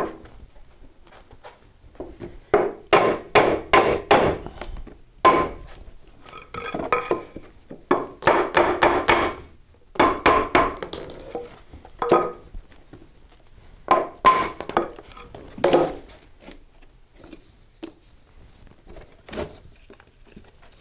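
A hammer striking a wooden 2x4 tapping block held against the edge of an OSB-topped subfloor panel, knocking the tongue-and-groove joint tight. The blows come in clusters of several quick strikes with pauses between.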